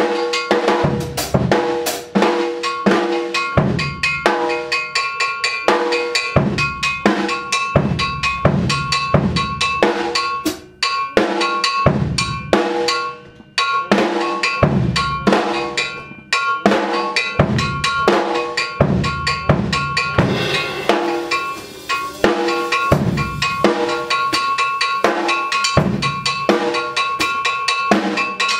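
Drum kit played in a busy groove of kick drum and snare, with a car tailpipe struck as a percussion instrument giving a ringing, cowbell-like metallic tone over the beat. The playing breaks off briefly a few times near the middle.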